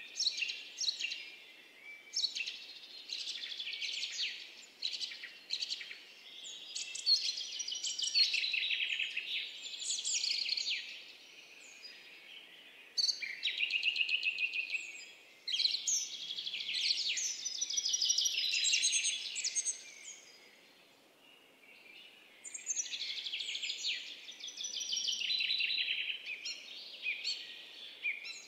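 Small birds chirping and twittering in a busy, high-pitched chorus of rapid calls. It thins out in two short lulls, about halfway through and again about two-thirds through.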